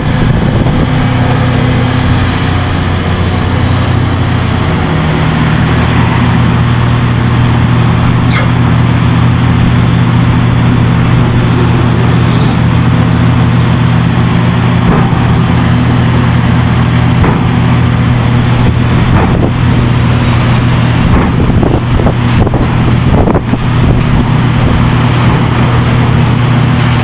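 Hitachi ZX690LCH-6 demolition excavator's diesel engine running steadily under working load, its note stepping up about five seconds in as the machine slews and digs. Scattered sharp knocks and clanks of the demolition bucket on concrete and rubble, most of them in the second half.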